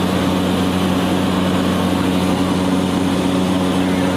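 An engine running at a steady speed, a constant low hum with no change in pitch or level.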